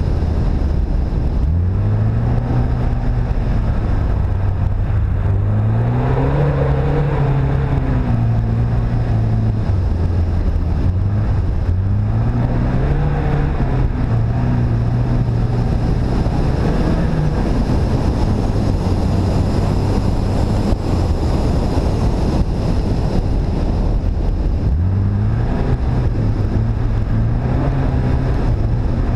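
Car engine being driven hard on a snowy track, its pitch climbing and dropping several times with throttle and gear changes, over steady road and wind noise.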